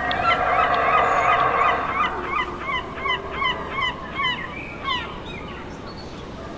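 A chorus of short, honking animal calls: dense in the first two seconds, then separate calls about three a second, thinning out after about five seconds.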